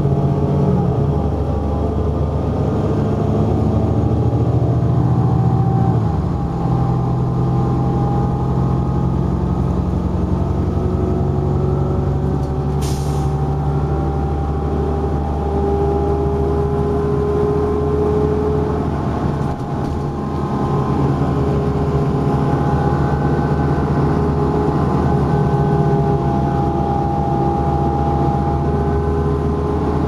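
Interior sound of a 2011 New Flyer XD40 bus, its Cummins ISL9 diesel engine running steadily at highway speed with road noise. The engine hum shifts about six seconds in, and a brief hiss of air comes about 13 seconds in.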